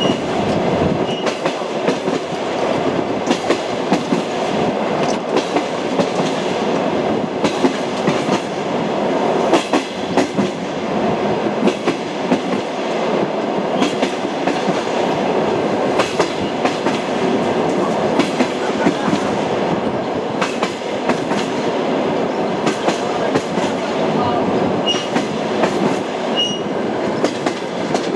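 Train running on rails: a steady rumble of the moving cars with the clickety-clack of wheels striking rail joints at irregular intervals.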